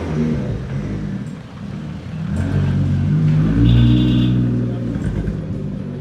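Nissan Skyline R33's engine running and being revved, the pitch climbing to its loudest about four seconds in, then falling back.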